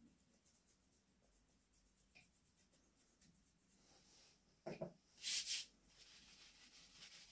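Faint scratching and rubbing as a wooden hiking stick is worked over by hand during woodburning, with a light knock and then a short, sharp hiss a little after halfway.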